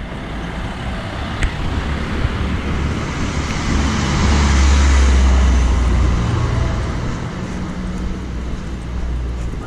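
Small van driving past close by on a cobbled street: engine rumble and tyre noise swell to a peak about five seconds in, then fade as it goes by.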